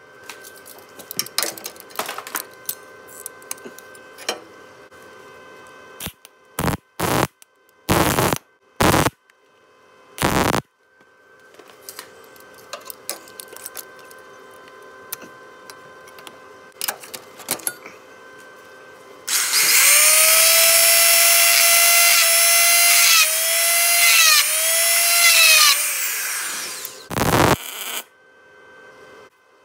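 MIG welder striking several brief tack welds, heard as short bursts of noise about half a second long, with small clicks between them; this is welding onto broken exhaust manifold studs in the cylinder head so they can be twisted out. For about six seconds in the second half a loud high-pitched whine runs, dipping in pitch a few times.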